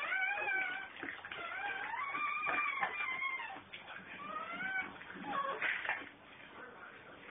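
Newborn puppy crying in a string of high, wavering squeals. The longest, about two seconds in, lasts about two seconds.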